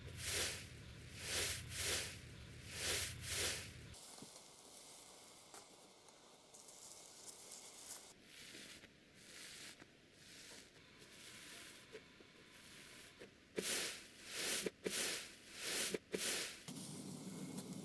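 A hand pressing into fluffy slime, making a series of airy squishes in the first few seconds and again near the end. In between, quieter sticky crackling as slime is stretched into strings.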